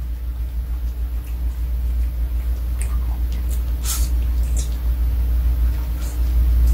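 A steady low rumble, with scattered light clicks of a small dog's claws on a wooden floor and mat as it walks and sniffs about. There is one sharper click about four seconds in.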